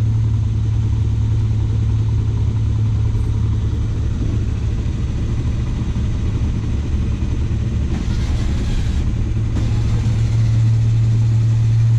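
Motorcycle engine idling steadily, with a short hiss about eight seconds in.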